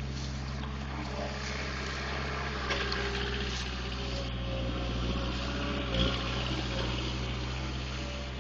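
Forklift engine running steadily, with a sharp clunk about three seconds in and a louder one about six seconds in.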